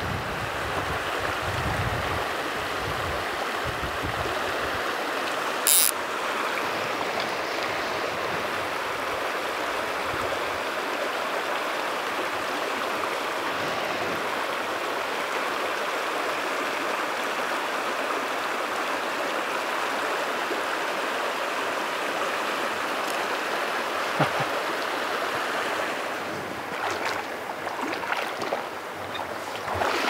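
Shallow mountain river running over rocks, a steady rushing flow. Wind buffets the microphone for the first few seconds, and a short sharp click stands out about six seconds in.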